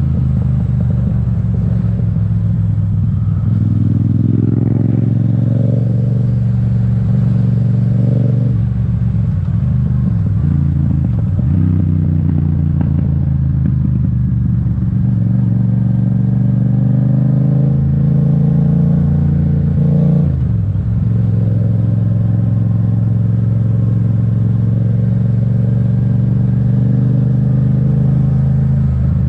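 Yamaha MT-07's 689 cc parallel-twin engine pulling the bike along, its exhaust note climbing a few seconds in, easing back, then climbing again before dropping abruptly about twenty seconds in.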